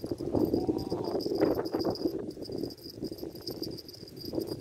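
Insects trilling steadily in a high, pulsing drone, under a louder irregular low rushing noise that swells and fades.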